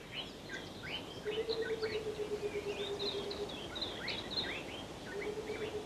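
Outdoor birdsong ambience: many quick, high chirps and whistles from small birds, overlapping throughout. A steady low hum comes in twice, each time for about two seconds.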